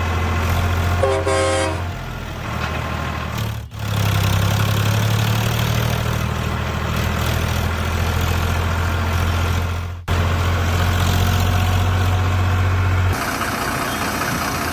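Truck engine running steadily with a low rumble, and a short horn toot about a second in; the sound drops out for an instant twice, like splices.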